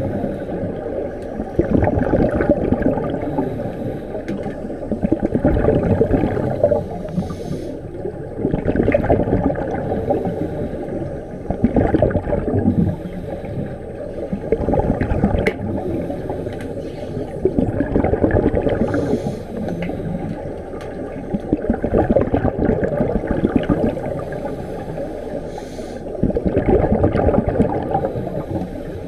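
Scuba regulator breathing heard underwater: a rush of exhaled bubbles gurgling up every three to four seconds, with quieter stretches in between.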